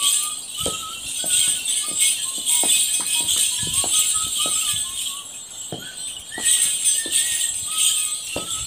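Morris dancer's shin bell pads jingling with every step, with feet striking the paving stones about twice a second, over a simple dance tune played one note at a time.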